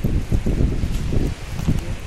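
Wind blowing across a phone microphone, an uneven gusty rumble.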